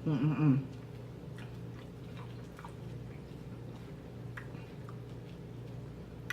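Mouth noises of someone eating: a short wavering hum of the voice in the first half second, then faint scattered clicks of chewing and lip smacking.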